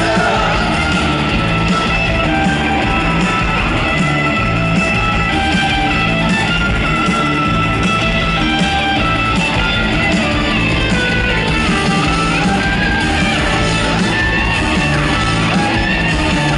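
Live rock band playing an instrumental passage: electric guitar, bass guitar and drums, loud and steady with a driving beat, heard through an arena PA.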